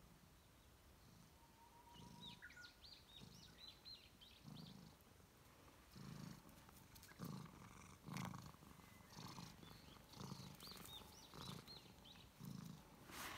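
Calico cat purring, a faint low rumble that swells and fades about once a second with its breathing, starting about two seconds in.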